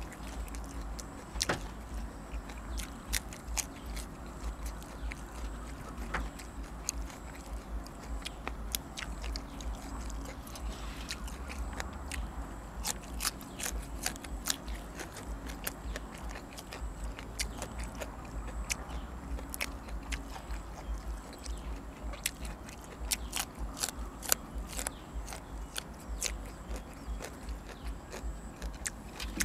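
A person chewing and biting food close to the microphone, with many short, sharp clicks at an uneven pace throughout. The food is rice noodles in coconut curry with chicken and fresh vegetables.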